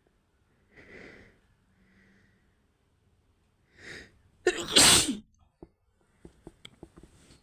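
A woman sneezing, set off by a cotton swab tickling inside her nose: breathy inhales build up, then one loud, forceful sneeze comes about four and a half seconds in. Small clicks follow near the end.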